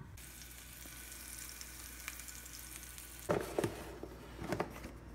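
A faint steady hiss, then several short clacks of a red plastic food-storage container being handled on a kitchen counter, over about a second near the end.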